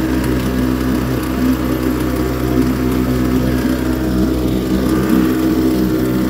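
YADAO 3.5 hp two-stroke outboard motor running steadily at a constant speed, its propeller churning water in a test barrel, while being broken in brand new.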